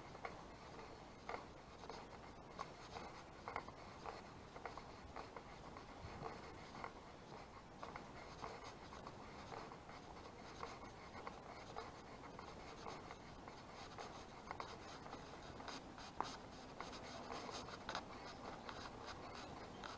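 Faint footsteps of a walker on a paved path scattered with leaves: short scuffing steps at an even walking pace.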